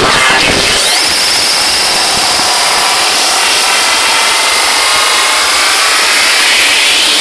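Loud electronic dance music from the festival sound system in a build-up. The bass cuts out about a second in, and a rushing noise sweep climbs in pitch toward the end, the riser before the drop.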